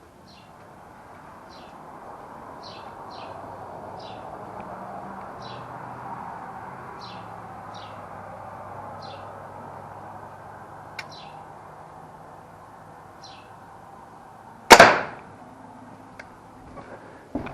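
A pellet gun fires a single sharp shot about fifteen seconds in, after a long wait filled with repeated short, high small-bird chirps over a steady faint background hum.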